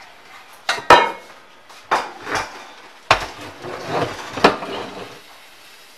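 Starfrit electric pressure cooker being handled and turned upside down, its plastic and stainless-steel body knocking and clunking against the countertop several times, loudest about a second in and again about three seconds in.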